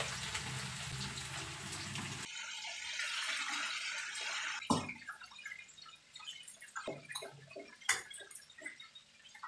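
Cornflour-and-turmeric-coated chicken pieces frying in hot oil in a wok, with a low hum under the first couple of seconds. The sizzle is dense for the first half, then quieter, with scattered pops and crackles.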